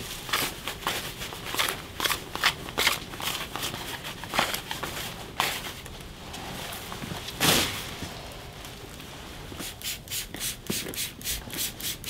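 Stiff-bristled push broom scraping across a tile floor in short, irregular strokes, then a quick, even scrubbing of about five strokes a second near the end.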